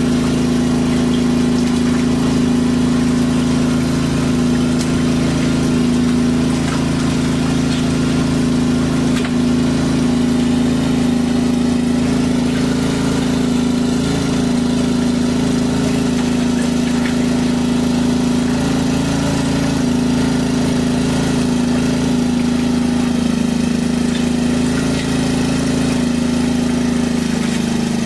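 Small engine-driven water pump running steadily at a constant speed, drawing water through its suction hose: an even, unchanging engine hum.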